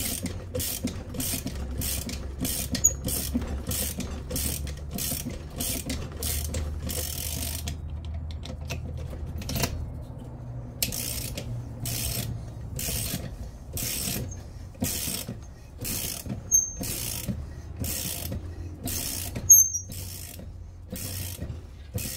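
Ratchet wrench clicking in steady strokes, about two a second, then pausing and going on at about one a second, as a gear is drawn onto the crankshaft.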